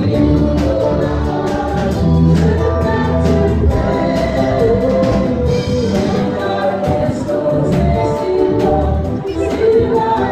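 Music: a choir singing over instrumental backing with a steady beat.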